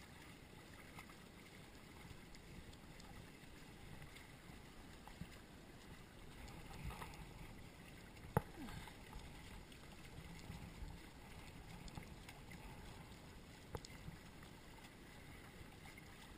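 Faint water lapping and sloshing against the hulls of a small Hobie Cat catamaran under sail, with one sharp knock about eight seconds in.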